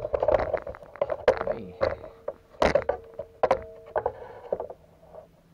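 Clicks and knocks from hands handling a mobility scooter, with a steady tone in the middle lasting about two and a half seconds and a lower tone near the end.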